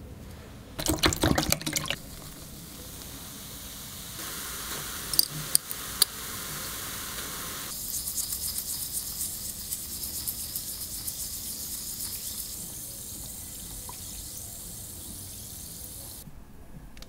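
A toothbrush scrubbing a small enamelled calendar number plate in a tub of wet cleaning solution, in quick rhythmic wet strokes. There is a short brisk burst about a second in and a longer run from about eight seconds, with three sharp clicks around five to six seconds.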